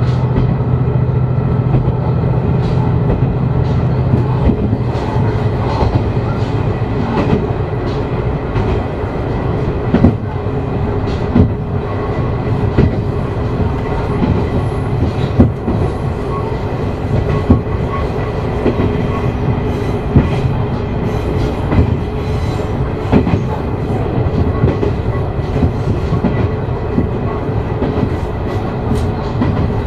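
Diesel railcar running along the line, its wheels clicking over rail joints over a steady rumble. A low engine hum is strong in the first few seconds and then fades.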